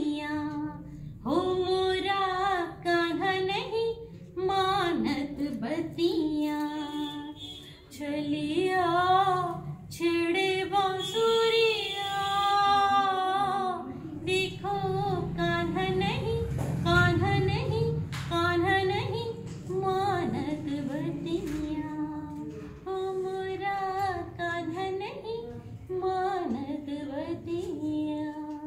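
A woman singing a Hindi devotional bhajan, her voice rising and falling in long held, wavering notes.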